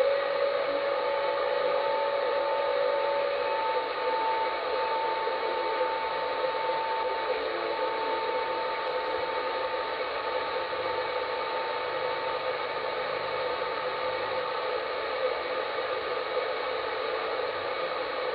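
CB radio set to channel 38 (27.385 MHz, lower sideband) receiving steady static hiss with no voice, and thin whistling tones that drift in and fade out again.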